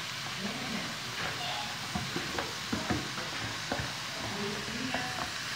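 Grated carrot going into a pot of frying sausage: a steady sizzle, with scraping and light knocks from about two seconds in as a wooden spatula pushes the carrot off a plastic tub and taps against the tub and pot.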